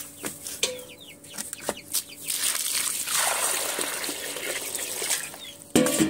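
Water poured into a small bird water bowl: a steady splashing hiss lasting about three seconds, starting about two seconds in, after a few light knocks and clicks. A loud knock comes near the end, and birds chirp and cluck around it.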